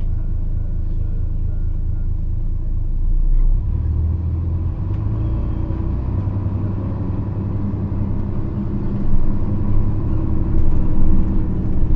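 Interior running sound of a 1998 Nissan Diesel KC-RM211GSN bus: its FE6E inline-six diesel and JATCO 3-speed automatic, a bus noted for an unusually loud, fierce running noise. The engine hums steadily, then about three and a half seconds in its note changes and it runs louder, with a faint steady whine above it.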